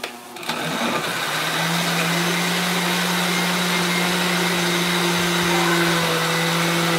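Countertop blender switched on about half a second in and running steadily, grinding tomatoes and garlic into a purée.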